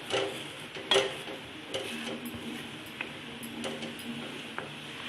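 A spoon stirring and scraping in a pan of ginger juice boiling down on the stove, the strokes about once a second over a steady sizzle: the juice is being reduced until it thickens.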